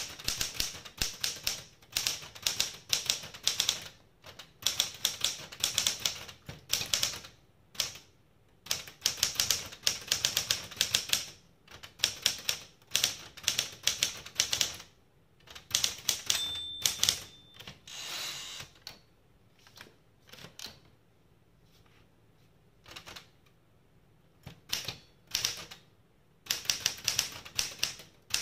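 SCM Smith-Corona Galaxie Deluxe manual typewriter being typed on in quick bursts of key strikes, with short pauses between them. About two-thirds of the way through, the margin bell rings once, then the typing goes sparse before fast runs start again near the end.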